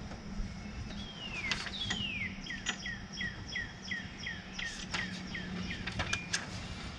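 A songbird singing: two long falling notes, then a run of about ten short falling notes at roughly three a second. A few sharp clicks sound near the end, over a steady low hum.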